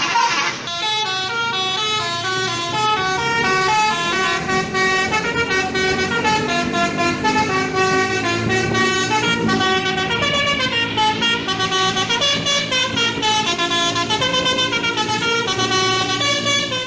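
Multi-tone 'telolet' bus horn playing a running melody, its notes stepping quickly up and down for many seconds before cutting off abruptly.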